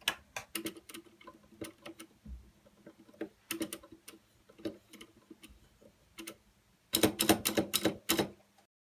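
Typing on a Royal Kludge RK61 mechanical keyboard with clicky blue switches: scattered single keystrokes, then a fast flurry of clicks about seven seconds in that cuts off sharply near the end.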